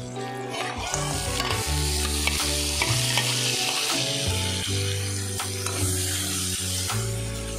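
Chicken pieces sizzling as they are tipped into hot oil in a steel kadai and stirred with a steel spatula, with scrapes and taps of the spatula on the pan. The sizzle is loudest in the first half, and steady background music runs underneath.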